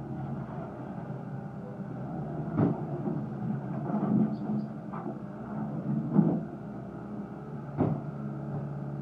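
Caterpillar skid steer loader's diesel engine running steadily, with sharp metallic clunks about two and a half, six and eight seconds in.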